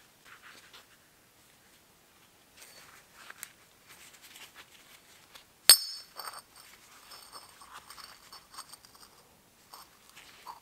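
A steel drive sprocket and a machined steel sprocket ring handled in work gloves: soft rustling and scraping, then one sharp metallic clink a little over halfway through as the parts knock together, ringing on for a few seconds.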